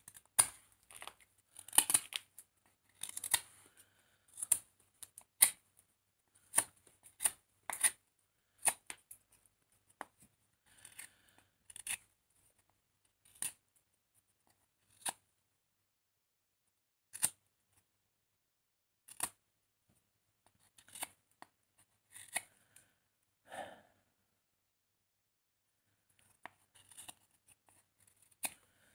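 A carving knife paring the edge off a wooden butter-knife blank, sped up: about two dozen short, sharp shaving cuts, close together in the first half and more spread out later.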